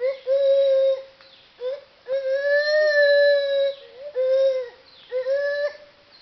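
Gibbon calling: a series of clear, pure hoots at an even pitch. A long held note of nearly two seconds comes in the middle, between shorter notes, some of them short upward swoops.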